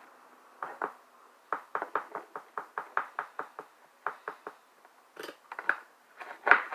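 A spoon scraping and stirring slime around a mixing bowl: a run of short scraping strokes about three a second, then a few slower, spaced strokes near the end.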